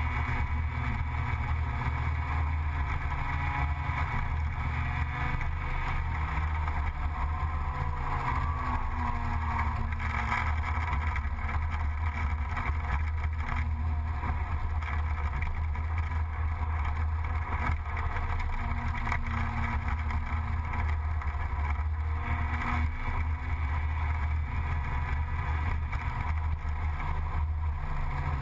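Gilera Runner 180 scooter's single-cylinder engine running at cruising speed, with wind and road noise from the ride. The sound stays mostly steady throughout.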